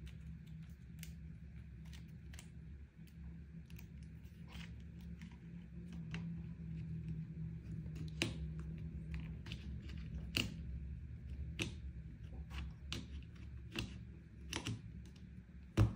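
Scattered clicks, scrapes and rustles of hands fitting accessories to an airsoft rifle, connecting and routing the tactical light's pressure-switch cable, over a steady low hum. A sharper knock comes just before the end.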